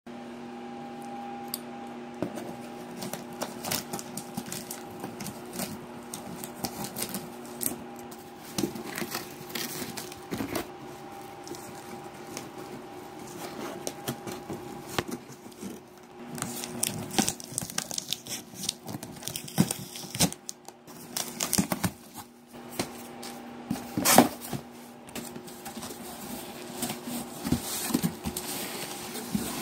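Scissors cutting through packing tape on a cardboard shipping box, with scattered clicks, scrapes and crinkling of tape and cardboard as the box is opened, over a steady low hum.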